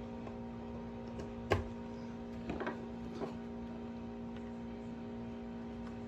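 A few light clicks and knocks from handling small parts, the loudest about a second and a half in, over a steady electrical hum.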